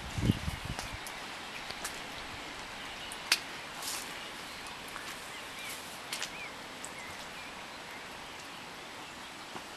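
Rainy outdoor ambience: a steady hiss of light rain with scattered drip clicks, and a few short bird chirps about six seconds in. A brief low rumble on the microphone at the very start.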